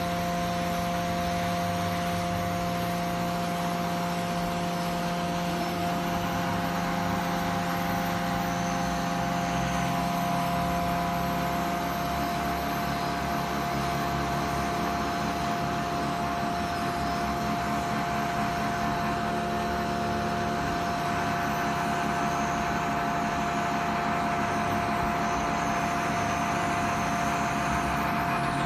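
Heavy machinery running steadily: a constant drone with a steady high whine over it. A lower hum weakens about twelve seconds in.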